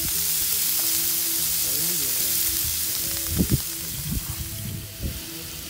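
Bacon-wrapped hot dogs sizzling on a Blackstone flat-top griddle: a steady frying hiss, with a couple of dull bumps about three and a half seconds in.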